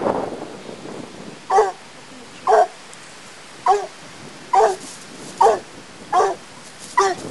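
Young Black and Tan coonhound barking at a raccoon: seven short, sharp barks about a second apart, after a rough rustling noise fades in the first second.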